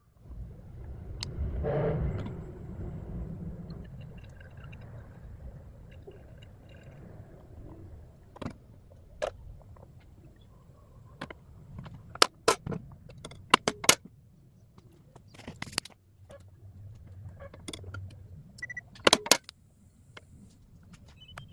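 Soil being dug and loaded: a low scraping rumble about two seconds in, then scattered sharp clicks and knocks, several in quick clusters.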